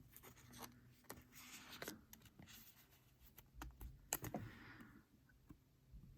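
Near silence with faint scattered clicks and brief scrapes of trading cards being handled, a card being slid into a plastic sleeve.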